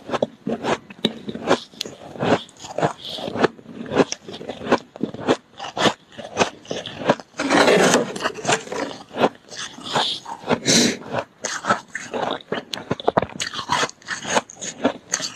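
Freezer frost crunching as it is bitten and chewed, a quick irregular run of sharp crunches, with a metal spoon scraping and scooping frost in a plastic tub. A longer, louder scrape-and-crunch stretch comes about halfway through.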